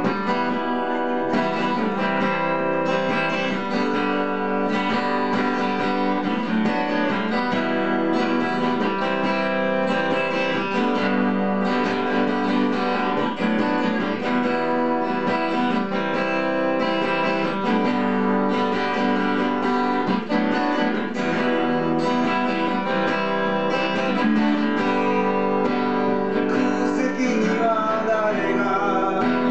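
Acoustic guitar strummed in steady chords, with no clear singing.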